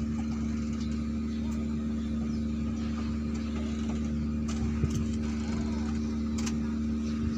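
Docked ferry's machinery running: a steady low drone with a constant pitched hum.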